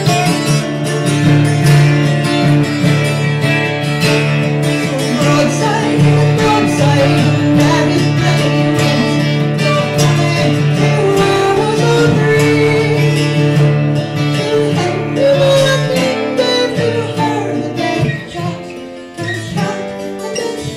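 Live acoustic folk music: a steel-string acoustic guitar and a mandola strummed together, with a woman's voice singing. The playing thins out and gets quieter near the end.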